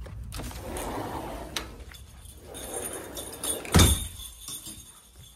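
A sliding glass patio door rolling along its track, then banging shut a little under four seconds in.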